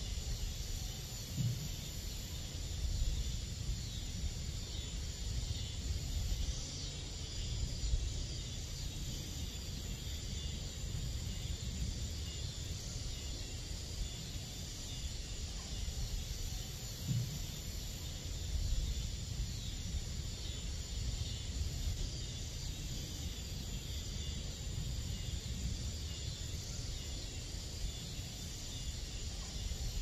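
Steady summer-night insect chorus with crickets among them, a high continuous trilling. Underneath runs a low rumble, and twice a short low call rises briefly, about a second and a half in and again past the middle.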